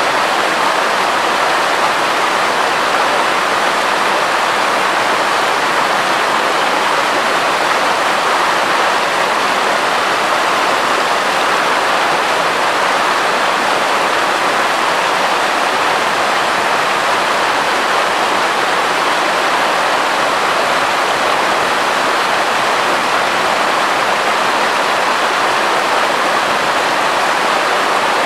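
Mountain river rushing steadily over boulders, whitewater spilling down small cascades between the rocks.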